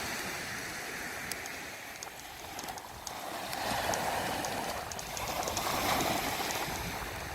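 Ocean surf washing onto the beach, a steady rushing noise that swells twice, with a few faint clicks.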